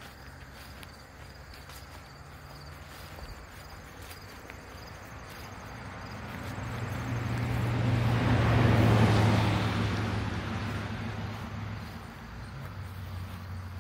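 A road vehicle passing: engine and tyre noise swell to a peak about nine seconds in, then fade away. Crickets chirp faintly in the first half.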